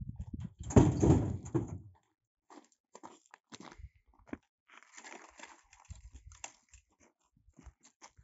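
Dry brushwood crackling and rustling as it is handled and tossed. The loudest stretch is a burst about a second in, followed by scattered snaps and crunches and another patch of rustling past the middle.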